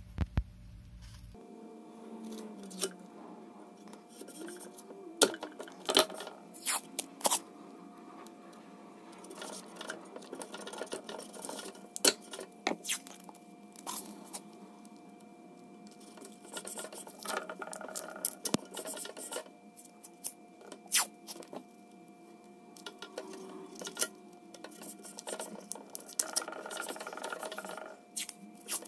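Green painter's tape being pulled off its roll, torn and smoothed down onto a 3D printer's aluminium bed: scratchy peeling and rubbing with scattered sharp clicks and taps.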